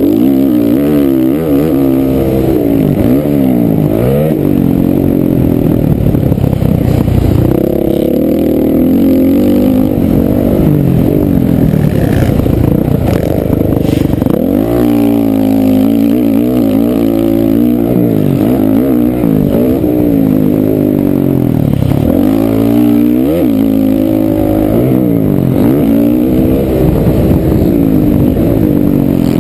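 Honda CRF450R motocross bike's single-cylinder four-stroke engine at race pace on an onboard camera, revving up and dropping back again and again as the gears change and the throttle rolls off and on. About halfway through the revs fall away deeply, then climb in one long pull.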